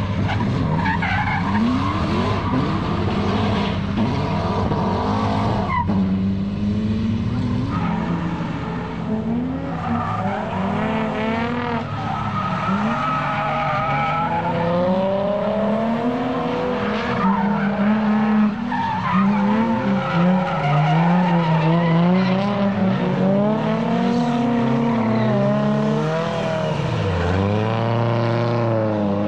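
Drift cars on track, their engines revving up and down again and again as they slide, with tyres squealing.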